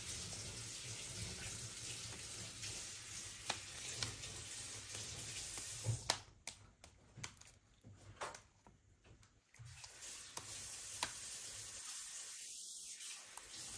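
Faint crackling with scattered small sticky clicks as slime is rubbed and picked off fingers over a plastic tub. It goes quieter for a few seconds in the middle.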